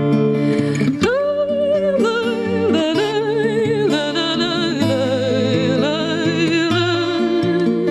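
A woman singing long held notes with wide vibrato over acoustic guitar accompaniment.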